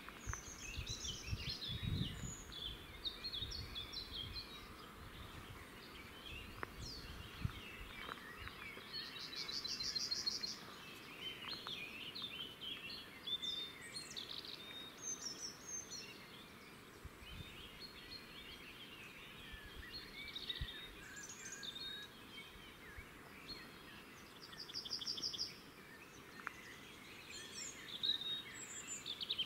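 Several songbirds singing in woodland: short chirps and phrases, with a rapid high trill about ten seconds in and again near the end, over a steady outdoor background. A brief low rumble comes about two seconds in.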